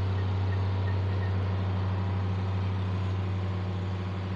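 A steady, loud, low machine hum that holds one pitch throughout, with a noisy haze over it.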